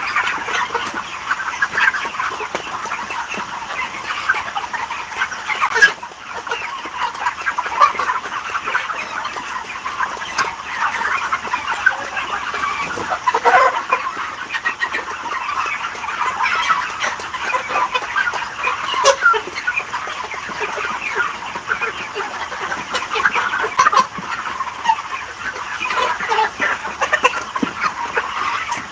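A large flock of chickens clucking and calling all at once, a dense, unbroken chatter of many overlapping birds.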